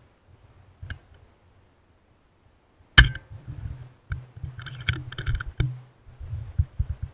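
A single air rifle shot about three seconds in, a sharp crack, followed by a run of metallic clicks and clinks as the rifle's action is worked.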